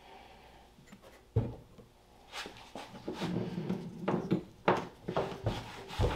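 A string of irregular knocks and clunks as a plastic tank fitting on a router's spin-weld mandrel is set and shifted in a cut hole in a polyethylene holding tank, with the router not yet running.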